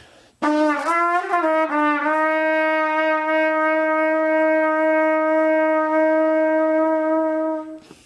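A trumpet sustaining one long note played with breath vibrato. The pitch wavers widely for the first second or so, then settles to a much slighter, nearly steady waver, with a little hand vibrato at the end of the note.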